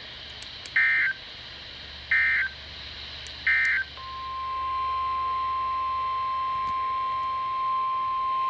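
Emergency Alert System SAME header: three short bursts of data tones about a second apart. About four seconds in, the steady 1050 Hz NOAA Weather Radio warning alarm tone begins and holds, the signal that opens a new warning broadcast.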